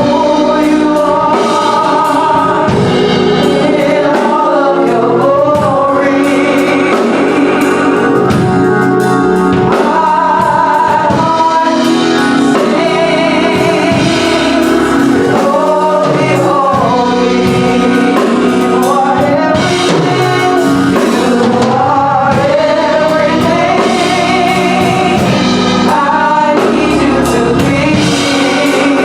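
Gospel song: a choir singing with instrumental accompaniment, played at a steady level.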